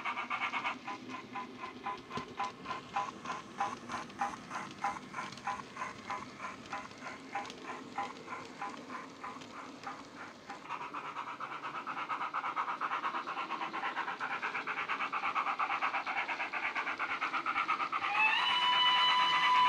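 Steam-locomotive chuffing from the ESU LokSound 5 sound decoder in a model LSWR Adams O2 tank engine, played through its bass-enhanced speaker. It chuffs in an even beat of about two and a half a second, then faster and louder from about halfway. Near the end a whistle sounds.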